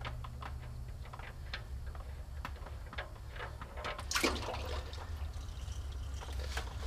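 Engine oil from a Cummins ISX oil pan as the drain plug is backed out by hand: a few light clicks, a splash a little after four seconds, then oil pouring into a plastic cup near the end. A steady low hum lies underneath.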